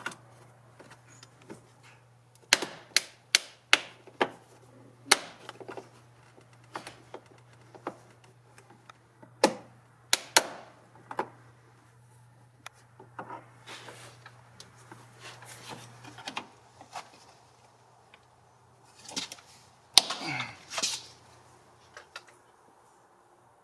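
Hard white plastic trim clips snapping and popping in irregular sharp clicks as rocker panel trim is pried off a van with a trim removal tool. The clips break as they come out, with the loudest snap about 20 seconds in. A faint steady hum sits underneath.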